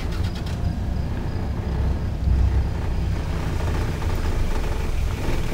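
Engine of an open safari game-drive vehicle running with a steady low rumble.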